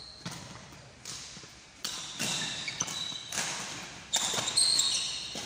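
Badminton rally: sharp racket strikes on the shuttlecock, roughly a second apart, with short squeaks of court shoes on the wooden hall floor.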